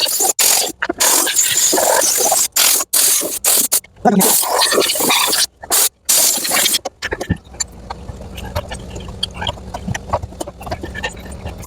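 Air blown hard into a lawn tractor's rear compartment to clear out packed grass, a loud hiss in repeated bursts with short breaks. About seven seconds in it gives way to a quieter low steady hum.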